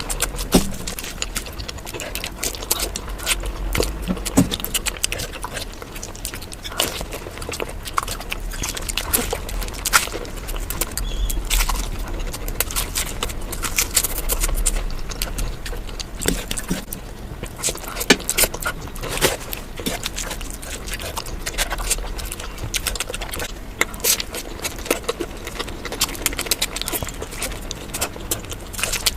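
Close-miked eating sounds: chewing and smacking with many irregular sharp clicks.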